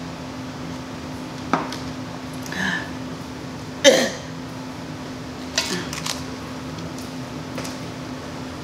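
Close-up eating sounds: a handful of wet mouth smacks and sharp clicks and knocks, the loudest about four seconds in, with a brief falling, throaty tone.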